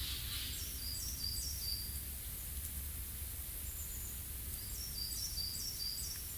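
A small songbird singing twice, each time a quick run of about five high, falling notes, over a steady low rumble.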